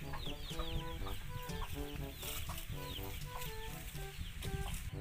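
Chickens clucking, with many quick high peeps that fall in pitch.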